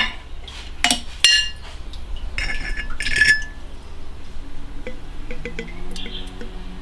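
Glass lid clinking against a glass jar: several sharp clinks in the first three seconds, some with a short ringing note, then fainter light ticks of glass.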